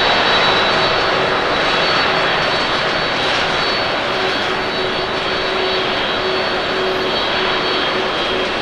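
Boeing 787-8 Dreamliner's jet engines at takeoff thrust as the airliner climbs away: a steady rushing noise with a high whine and a lower hum running through it, slowly fading.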